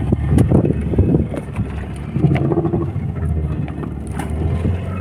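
Fishing boat's engine running steadily, a low hum, with a few knocks on deck.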